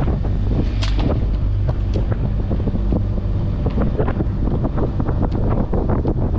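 Wind buffeting the microphone over the steady low drone of a sailing yacht's inboard engine running under way.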